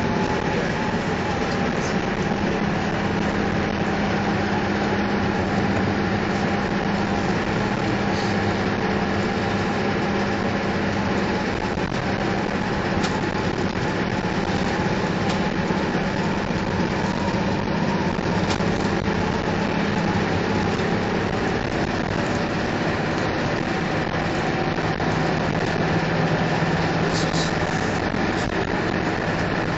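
Engine and road noise of a moving vehicle heard from inside its cabin: a steady drone with a low engine hum underneath.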